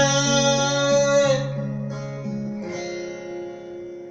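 Acoustic guitar strummed and picked, with a man's held sung note that ends about a second in; the guitar carries on alone, getting quieter, until the next sung line.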